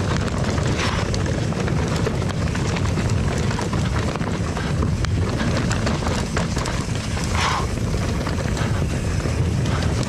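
Wind rushing over the camera microphone and tyres rolling over a dirt and rock trail as a Nordest Bardino steel hardtail mountain bike descends, with two brief louder rasps, about a second in and about seven seconds in.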